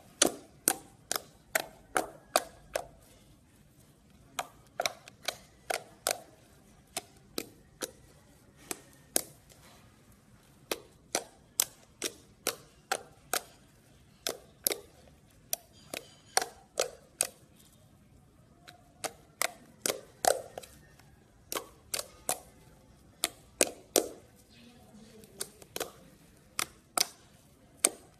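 Thick white slime popping and clicking as fingers poke and press into it. The pops come in runs of several a second, broken by short pauses.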